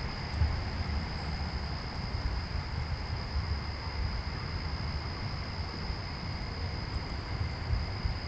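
Steady night-time outdoor ambience: a constant hiss and low rumble with a continuous thin high-pitched tone held unbroken throughout.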